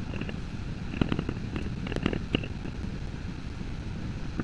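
Poly maul striking a metal leather-tooling stamp into tooling leather: a run of irregular sharp taps, thickest about one and two seconds in.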